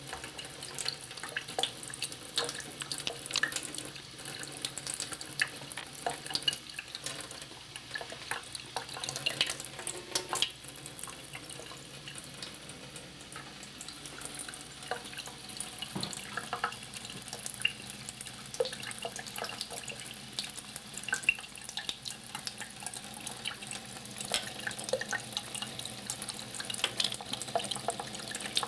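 A thin stream of tap water running steadily into a sink, broken by many small irregular splashes and clicks as a Maine Coon cat laps at the falling stream.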